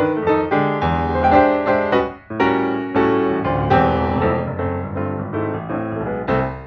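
Background piano music: a steady run of notes with a brief pause about two seconds in.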